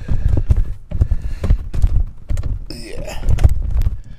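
Irregular low thumps and knocks of a hand-held camera being moved and jostled, with a short squeak about three seconds in. The noise cuts off abruptly at the end.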